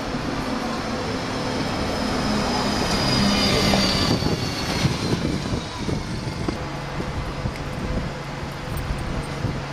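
Single-deck bus driving past at close range: its engine and a high whine, falling slightly in pitch, grow to a peak about four seconds in and then fade. A second bus's engine hum comes in near the end as it approaches.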